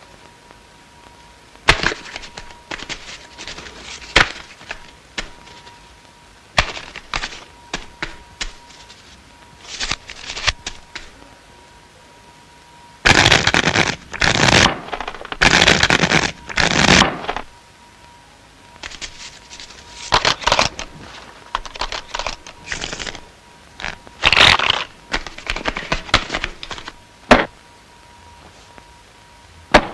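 A deck of playing cards being shuffled by hand: scattered snaps and clicks of cards, with a few seconds of loud riffling near the middle and a shorter burst of riffling later on.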